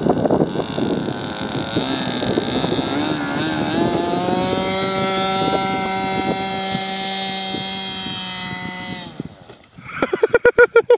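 Radio-controlled model plane's propeller motor whining, rising in pitch about two seconds in, then holding steady while the plane runs along the ground, and cutting off about nine seconds in. Wind rumbles on the microphone at the start, and there is a short burst of rapid pulsing sounds near the end.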